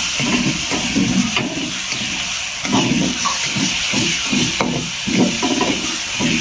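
A ladle stirring and scraping food in a hot iron wok, with repeated strokes a few times a second over a steady sizzle of frying.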